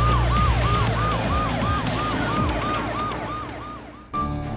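Police car siren sound effect in quick, even cycles, about three a second, over a low vehicle rumble, fading away. Near the end it cuts off suddenly to a different steady hum.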